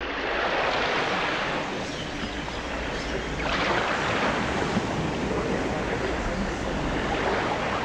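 A steady rushing noise that swells and eases about every three and a half seconds.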